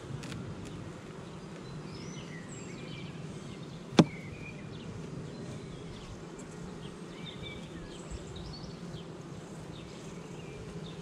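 Honey bees buzzing steadily over an open hive full of bees. About four seconds in there is a single sharp knock.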